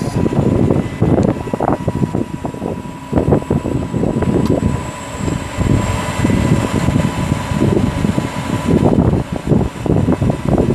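Wind gusting on the microphone over the steady running of a digger derrick truck while its hydraulic boom is lowered and retracted, with a thin steady whine.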